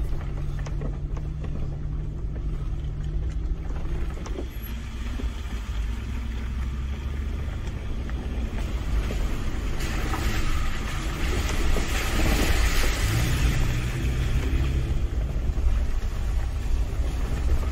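Toyota FJ Cruiser's 4.0-litre V6 running steadily at low speed on a rough dirt track, with a constant low engine drone and scattered knocks and rattles in the first few seconds. A rush of tyre noise over gravel and puddles swells from about ten seconds in.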